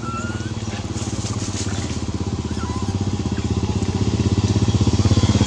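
A small engine running with a fast, even beat, growing steadily louder.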